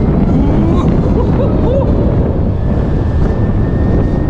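Wind rushing over the microphone and road noise from a BMW electric motorcycle ridden at expressway speed, a steady loud rush with a thin, steady high whine over it.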